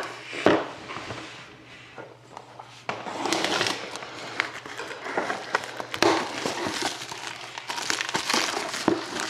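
Plastic shrink wrap being torn and peeled off a cardboard trading-card box, crinkling and crackling with sharp clicks. It grows louder and busier from about three seconds in.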